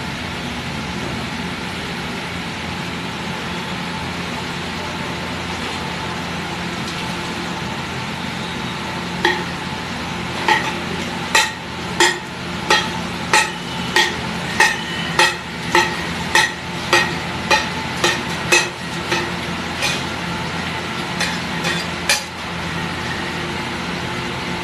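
Metal spatula chopping a block of butter on a large flat pav bhaji tawa: from about nine seconds in, a steady run of sharp, ringing metal-on-metal clacks, about one and a half a second, stopping near the end. Under it a steady sizzle and background noise.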